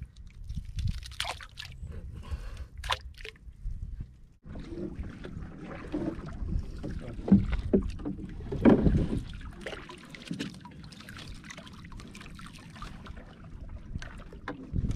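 Knocks, rattles and water splashing in a small boat as wire-framed crab trap nets are handled, over a low wind rumble on the microphone. The sound breaks off sharply about four seconds in and starts again, busier and louder, with the loudest knocks and splashes a few seconds later.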